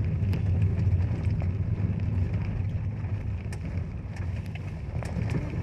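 Car driving over a rough, broken gravel road, heard from inside the cabin: a steady low engine and tyre rumble with a few small scattered knocks and rattles.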